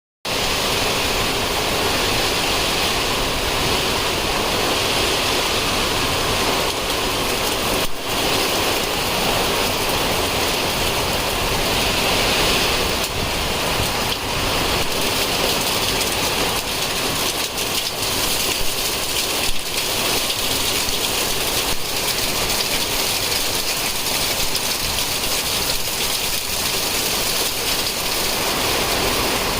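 Heavy rain pouring down steadily, a dense, even hiss of water.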